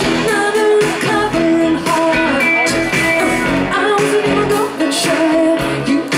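Live pop-rock band playing through a festival PA: a woman singing lead over electric guitar, bass guitar and keyboard.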